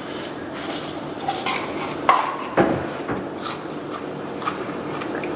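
Light clatter and handling noises: a scattering of small knocks and clicks as objects are picked up and set down.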